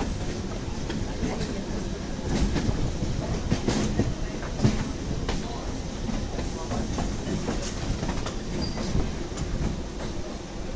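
Electric suburban local trains (EMUs) running, a steady rumble with steel wheels clacking irregularly over rail joints and points.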